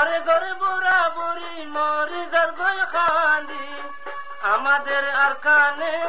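A man singing a melodic song in a wavering, ornamented voice over instrumental backing with a few sustained tones.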